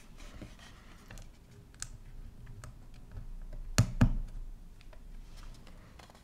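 Light clicks and handling knocks from a graphics card's blower cooler being turned over and lowered onto the circuit board, with two sharp louder knocks close together about four seconds in as it is set down.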